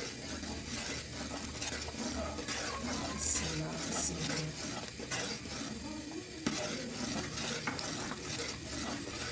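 A spoon stirring thickened vegetable soup in a pot as it boils, with frequent light scrapes and clinks of the spoon against the pot.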